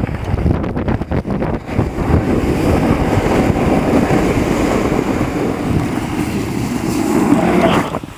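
Snowboard sliding over packed snow, with wind rushing on the microphone. The steady scraping rush drops away sharply near the end.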